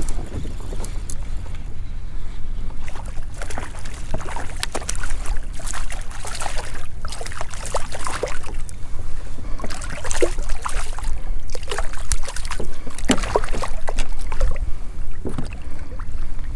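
Wind buffeting the microphone, a steady low rumble, with water splashing and lapping and scattered short knocks and taps, busiest through the middle.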